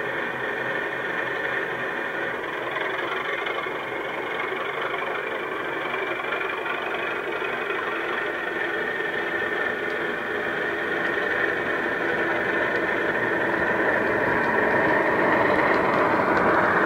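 Model Class 37 diesel locomotive's DCC sound decoder playing a recorded English Electric diesel engine sound through the loco's small onboard speakers as it moves off with its train. The engine sound is steady, then grows louder over the last few seconds.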